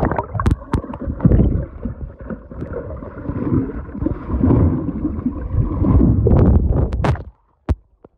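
Muffled, rumbling water churning and splashing picked up by a phone's microphone held underwater as a swimmer moves through a swimming pool. The sound cuts off abruptly near the end, followed by a couple of sharp clicks.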